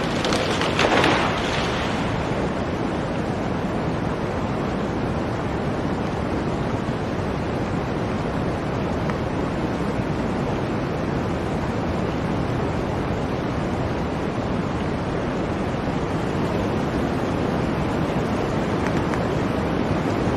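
Blizzard wind blowing in a steady rush, with a stronger gust about a second in.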